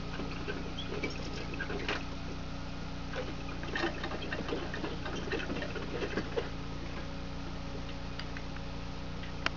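A car engine idling steadily as a low hum, with scattered light clicks and ticks over it.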